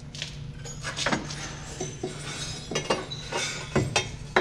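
Metal tools and parts clinking and tapping in a series of sharp, irregular clinks, over a steady low hum.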